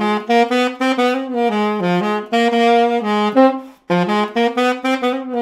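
Trevor James Custom Signature Raw tenor saxophone playing a flowing phrase of quick notes, with a brief break a little under four seconds in.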